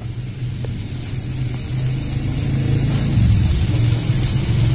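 Butter melting and sizzling softly in a stainless steel pot, a fine hiss that grows a little louder after about three seconds, over a steady low rumble.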